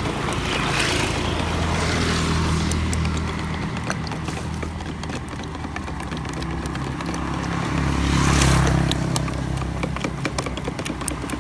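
Street traffic: motor vehicles passing close by over a steady engine hum, one about a second in and a louder one near the end. Light clicking of a skewer stirring beaten egg in a plastic cup runs underneath.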